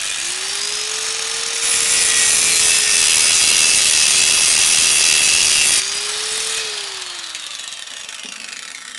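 Angle grinder switched on and spinning up, then grinding into the steel weld bead that joins a microwave oven transformer's base to its laminations, loudest from about 2 s to 6 s. It is then lifted off and runs down with a falling whine.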